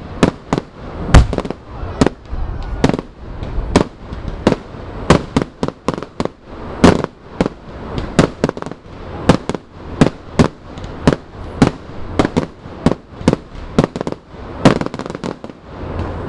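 Fireworks display: a dense, irregular barrage of sharp bangs, about two or three a second, some much louder than others, the loudest about a second in.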